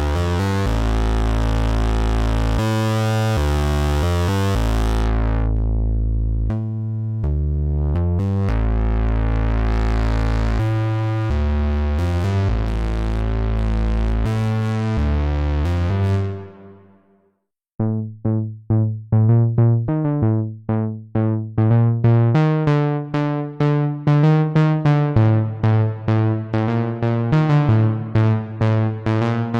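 Waldorf Pulse 2 monophonic analog synthesizer playing presets: a low bass line with a sweeping filter that fades out about two-thirds of the way through, then, after a brief gap, a new patch of short plucked notes in a quick repeating pattern.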